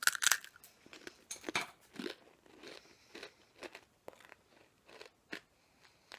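A microwaved fortune cookie, burnt in places, being bitten and chewed with crisp crunches. The crunches come thickest in the first moment and thin out into sparse crunches toward the end.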